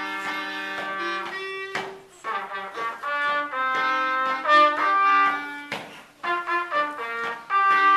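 Two saxophones playing a melody together in two-part harmony, in short phrases, with a couple of sharp percussive hits between them.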